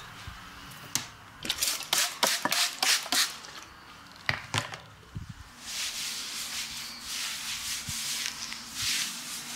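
A quick run of sharp clicks and short spritzes as bottles and a trigger spray bottle are handled at the basin, then a towel rubbed over wet bare skin in repeated swishing strokes for the last few seconds.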